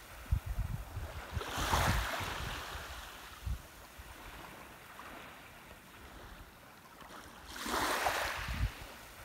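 Small waves washing onto a sandy beach, the wash swelling about two seconds in and again near the end, with wind buffeting the microphone.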